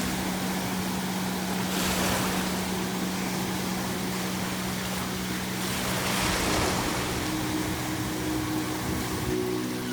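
Ocean waves breaking on the shore in slow surges, with a swell about two seconds in and another about six seconds in, over a steady low hum; higher held tones join the hum about seven seconds in.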